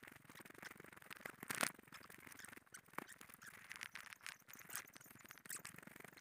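Faint footsteps and rustling on a leaf-littered forest trail: an irregular scatter of small crackles and scrapes as feet and the camera brush through undergrowth.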